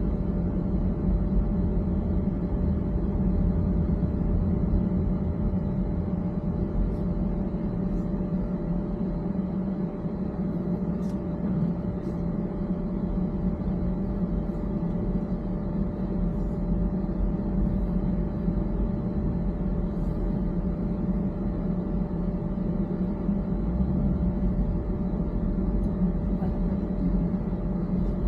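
Steady road and engine rumble inside a moving car, with a faint constant hum.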